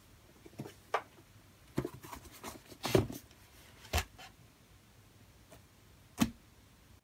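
A cardboard box being handled and held up by hand: scattered taps, bumps and rubs, the loudest about three seconds in.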